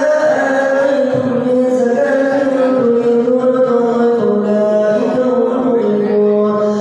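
A man's solo voice singing in long, held notes that bend slowly up and down with ornaments, in a chanted devotional style.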